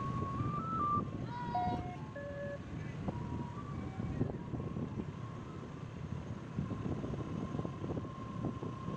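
Outdoor ambience with wind rumbling on the microphone. In the first two or three seconds a short tune of single electronic beeping notes plays, stepping up and down. After that a thin steady tone is held.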